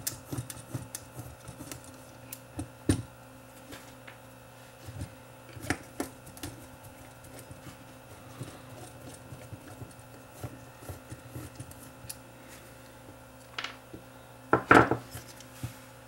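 A small screwdriver and hands working a cassette transport mechanism: light clicks, scrapes and rattles of metal and plastic parts as the screws holding its motor come out and the mechanism is turned over. A few louder knocks stand out, one about three seconds in and two near the end.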